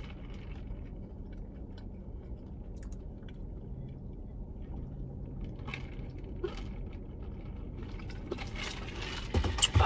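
Sipping a fountain soda through a straw from a large paper cup: quiet liquid and sucking sounds with scattered small clicks over a low steady hum, and a few louder clicks and knocks near the end.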